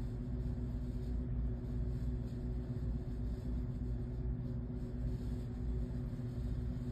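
A steady low rumble with a constant low hum, unchanging in level.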